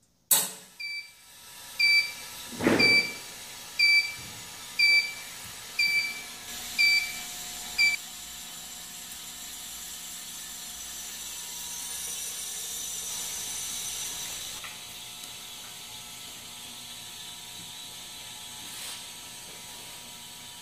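SJ-FW vertical autoclave beeping seven times, about once a second, after a sharp click, as its sterilisation cycle ends. A thud comes early among the beeps. Then a steady hiss of steam venting from the steam outlet as the chamber pressure drops, strongest about halfway through.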